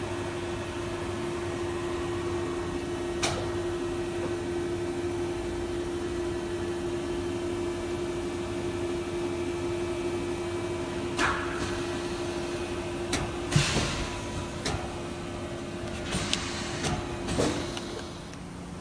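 AWEA BM-1600 vertical machining center running with a steady hum, broken by a few sharp clicks and clunks. The hum stops shortly before the end, among clunks as the machine's enclosure door is handled.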